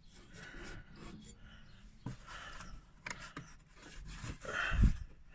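Hand work with a screwdriver on stiff, rusted screws in a mower's cover: scraping and rubbing with a few sharp clicks, over heavy breathing from the effort. A low thump near the end is the loudest sound.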